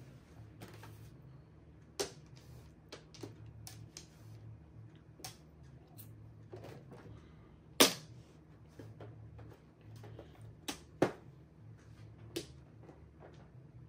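Mahjong tiles clacking as they are set down and discarded on the table: single sharp clicks a second or a few seconds apart, the loudest about eight seconds in, with two in quick succession near eleven seconds.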